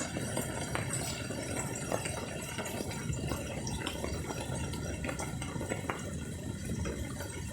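Rain falling steadily, with water splashing and scattered drops ticking.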